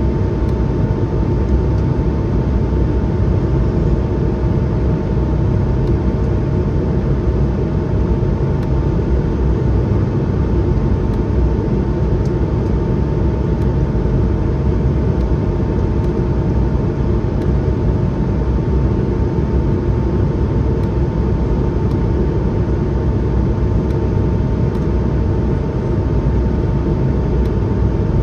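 Airbus A220-100 cabin noise: a steady, unchanging rumble of the Pratt & Whitney PW1500G geared turbofans and airflow, with two steady hum tones running over it.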